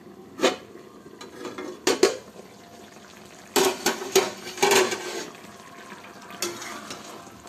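Flat aluminium plate lid lifted off a kadai and set down, with sharp metal-on-metal clanks. There is one clank about half a second in, two close together near two seconds, and a burst of clattering around four to five seconds, then a last lighter clink.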